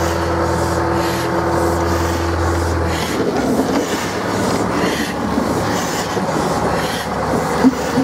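Tr-class diesel shunting locomotive running with a steady engine drone as it moves slowly past, hauling a steam crane wagon. About three seconds in, the drone gives way to the rattle of the wagons' wheels on the rails, with a sharp clank near the end.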